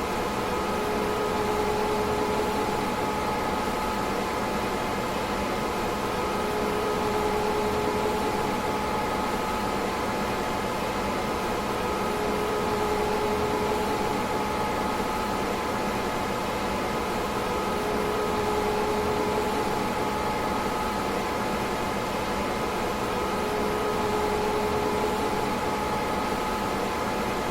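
A DEC PDP-11/44 minicomputer running: a steady whir of cooling fans with a few constant tones on top, and a lower hum that fades in and out about every six seconds.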